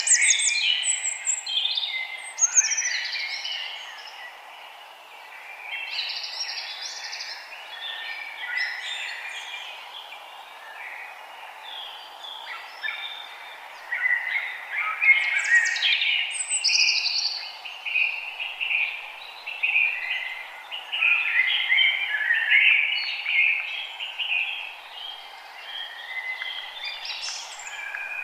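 Several birds chirping and singing at once in a dense, overlapping chorus of short high calls, rising and falling in loudness, over a steady background hiss.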